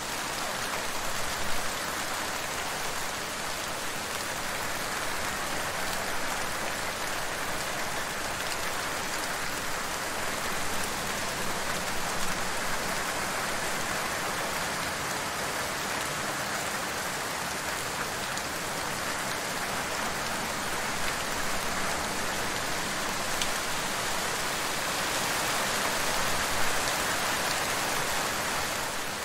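Steady rain falling in an even hiss, with a few sharper drop hits standing out now and then.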